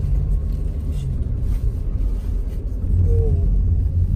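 Steady low rumble of a car's engine and tyres heard from inside the cabin while it drives slowly.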